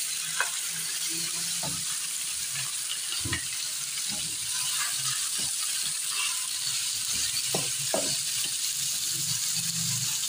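Minced meat sizzling in hot oil in a nonstick frying pan, stirred with a wooden spoon that knocks and scrapes against the pan now and then.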